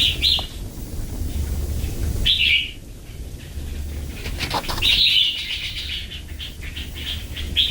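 Hill myna giving several short, harsh, noisy calls, with a longer one about five seconds in.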